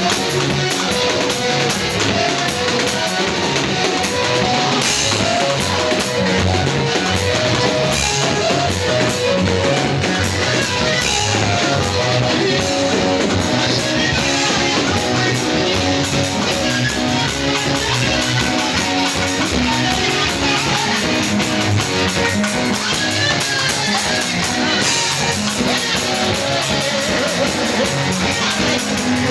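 Band music with guitar and drum kit playing a steady, upbeat rhythm.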